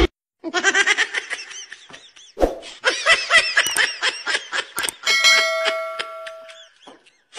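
A group of young men laughing in quick, pulsing bursts. About five seconds in, a steady bell-like chime sound effect rings for under two seconds.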